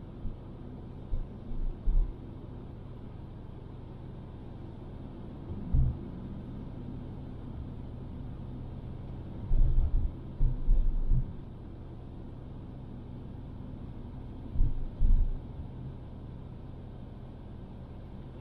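Car driving along a city road: a steady low rumble of engine and tyres, broken by short low thumps every few seconds, the heaviest cluster about ten seconds in.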